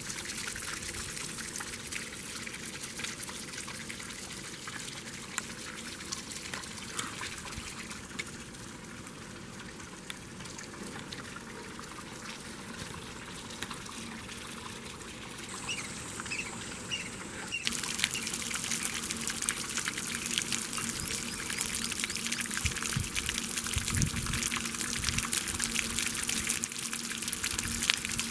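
Water splashing and trickling continuously, with many small splashes; it turns abruptly louder and brighter about two-thirds of the way through, with a few low thuds near the end.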